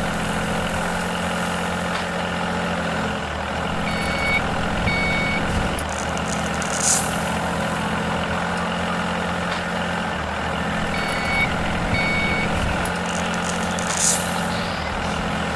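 Heavy vehicle engine running steadily, with two pairs of short high reversing beeps, one about four seconds in and one about eleven seconds in, and a brief hiss twice.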